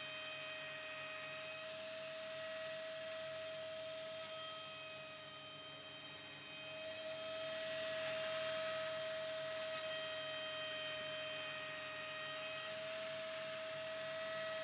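CNC router spindle running with a steady high whine over a hiss of cutting, machining the wooden board to clean it up; it grows a little louder about halfway through.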